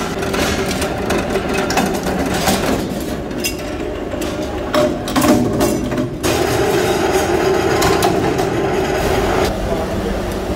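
Mechanical power press stamping sheet-steel parts: repeated metal knocks and clatter over the running machine. About six seconds in the sound changes to a steadier machine hum.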